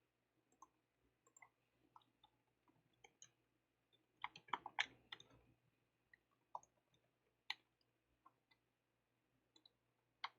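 Faint, scattered clicks of a computer keyboard and mouse, with a quick run of keystrokes about four to five seconds in.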